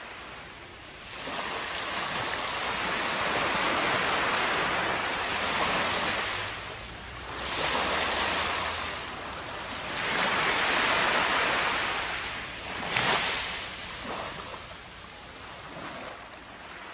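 Ocean waves washing up a sandy beach: the hiss of surf swelling and ebbing in about four successive washes, each a few seconds long.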